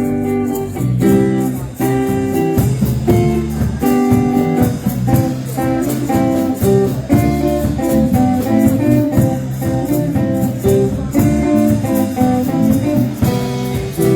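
A polka band playing live, with a steady beat and notes that change quickly.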